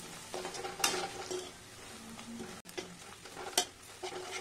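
A perforated metal spatula stirring sliced banana stem, onions and spices frying in oil in a metal kadai: a light sizzle with a few sharp scrapes and knocks of metal on the pan, the loudest about a second in and again near the end.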